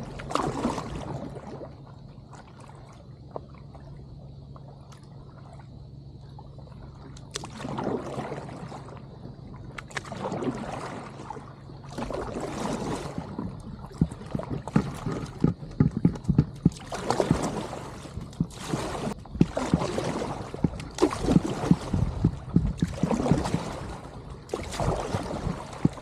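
A steady low hum at first, then paddle strokes dipping and swishing through the water, about one a second and louder in the second half.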